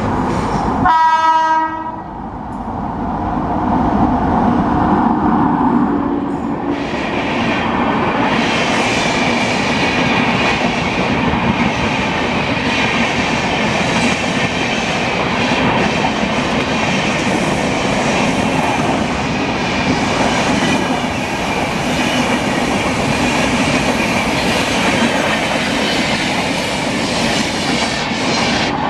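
Express train's locomotive sounds one short horn blast about a second in, then the train passes at speed close by. The noise of its wheels and coaches builds over the next few seconds and then holds steady and loud as the coaches go by.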